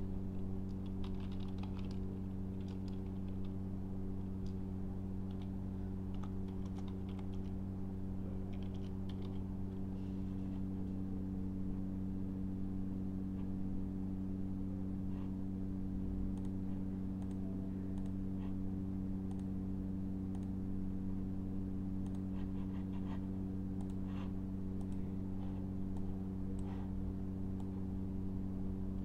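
Computer keyboard typing in several short runs of keystrokes over a steady low hum.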